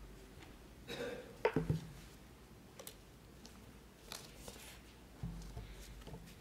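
Handling noise at a wooden pulpit, picked up by the pulpit microphone: a few sharp knocks about a second and a half in as things are set down on it, then faint clicks and a brief rustle.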